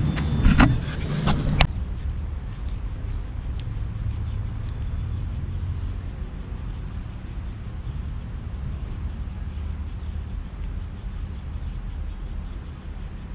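Insects chirping in a fast, even pulse over a steady low rumble of traffic. A few sharp knocks sound in the first two seconds, before the insect sound starts abruptly.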